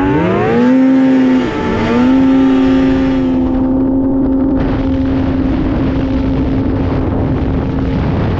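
Two-stroke snowmobile engine revving up quickly, then holding a steady high pitch, with a brief dip in revs about a second and a half in.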